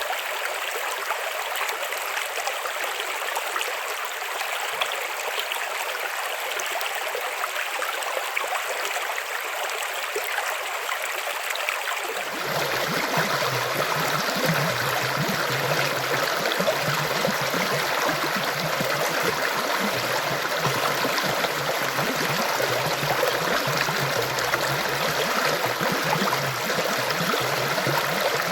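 River water flowing in a steady rushing stream. About twelve seconds in the sound changes abruptly to a fuller, slightly louder rush with more low rumble.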